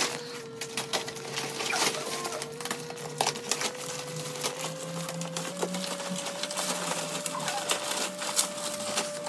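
Crinkling and rustling of a parcel's packaging being handled and pulled at by hand, a dense run of irregular crackles and clicks.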